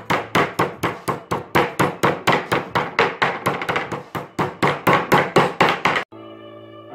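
Metal meat tenderizer mallet pounding raw cutlets flat on a wooden cutting board: fast, even strikes, about four to five a second. About six seconds in they stop abruptly and background music begins.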